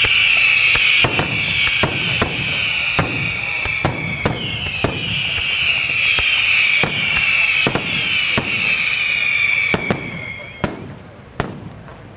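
St. Mary Fireworks aerial fireworks display: many overlapping shrill whistles, repeatedly falling in pitch, over sharp bangs that come every second or so. The whistling cuts out about ten seconds in, leaving a few scattered bangs.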